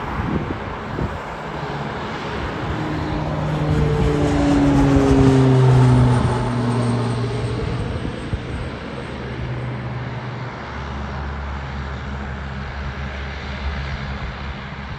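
Saab 340 twin turboprop taxiing past, its engines and propellers humming. The engine tones grow louder to a peak about five or six seconds in and slide down in pitch as the aircraft goes by, then settle into a steady lower drone.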